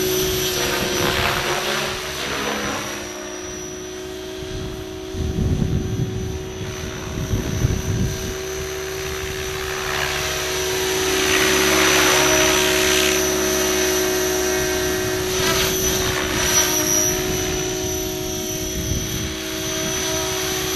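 Electric Align T-Rex 600 RC helicopter in flight: a steady motor-and-gear whine over the chop of the rotor blades, growing louder and softer as it flies nearer and farther away.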